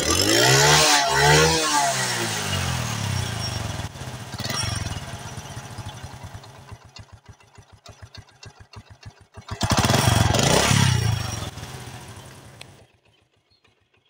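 A 2017 Honda CD 70's single-cylinder four-stroke engine, heard close at the exhaust. It is revved twice in quick succession, with a lighter blip about four seconds in, then putters at a slow idle. A longer rev follows about ten seconds in, and the sound then dies away and stops near the end.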